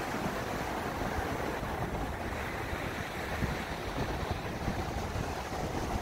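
Ocean surf breaking on a sandy beach: a steady, continuous wash of waves, with a low wind rumble on the microphone.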